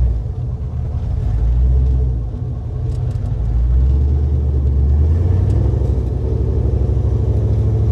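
LSX V8 engine of a 1968 Camaro SS heard from inside the cabin while driving, its exhaust through 2.5-inch stainless steel pipes (not straight pipes) giving a deep rumble. The revs swell about a second in, ease off briefly, then rise again around four seconds before holding steady.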